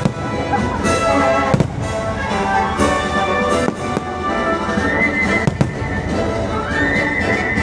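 Orchestral show music playing loud, with several firework bursts banging through it about a second apart.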